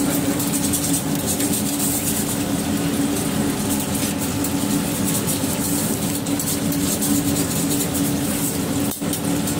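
Steady mechanical drone of commercial kitchen equipment with a constant low hum, while a ladle stirs thick curry gravy in a large kadai on the burner.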